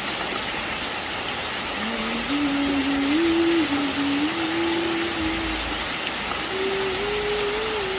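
Steady hiss of heavy rain. From about two seconds in, a low single-note tune steps up and down over it, pausing briefly near six seconds.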